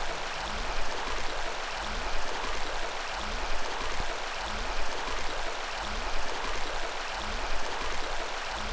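Creek water running in a steady, even rush.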